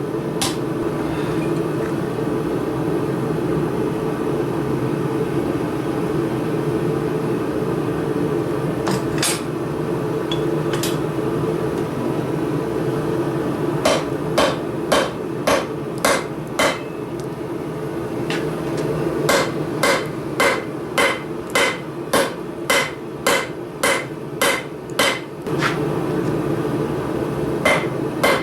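Blacksmith's hammer striking hot steel on an anvil while forging tongs: a few scattered blows, then from about halfway in, runs of steady ringing blows about two a second. A steady low hum runs underneath.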